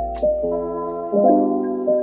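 Background music: soft keyboard chords, with new notes struck twice.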